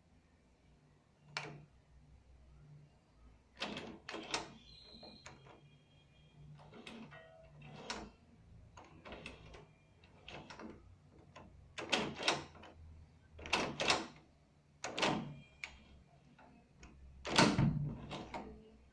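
A key working in a house door lock, with the door moving in its frame: a run of irregular metallic clicks and knocks, and a heavier thud of the door about 17 seconds in.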